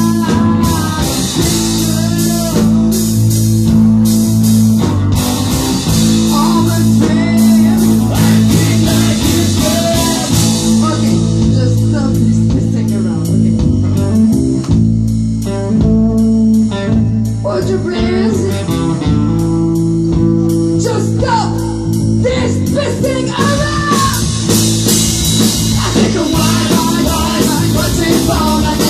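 Live rock band playing: electric guitars over bass and drums, with a woman singing. The cymbals drop out for a stretch in the middle and come back near the end.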